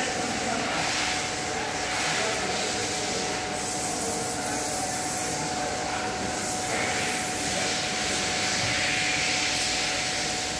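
Steady rushing cabin noise of a running car, with a faint steady high tone throughout.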